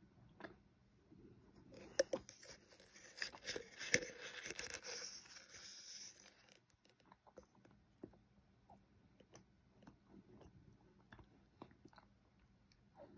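Spoon scooping and scraping through packed cornstarch powder in a tub, a soft crunching full of small clicks from about two seconds in until nearly seven seconds, followed by faint scattered ticks.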